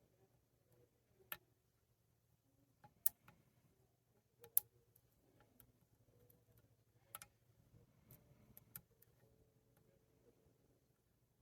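A lock pick working inside an American 1100 padlock under tension: a few sharp, irregular clicks, loudest about 3 and 4.5 seconds in, with faint scraping between them.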